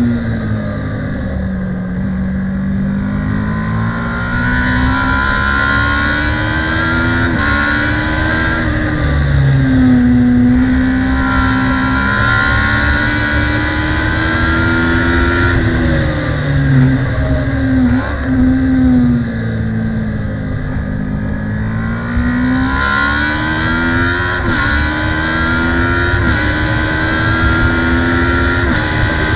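Kawasaki ER-6 650 cc parallel-twin race bike heard from onboard, lapping hard. Engine revs climb and then drop suddenly at each upshift, and sweep down under braking and downshifts, over a constant rush of wind.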